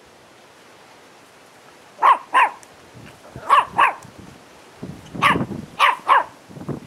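Patterdale terrier barking: about seven short, sharp barks in quick pairs and a threesome, starting about two seconds in.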